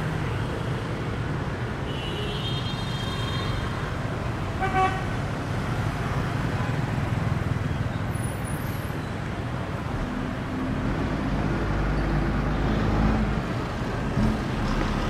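City street traffic of motor scooters and cars running past steadily, with a short horn toot just under five seconds in. In the second half a bus engine's low rumble swells as it passes.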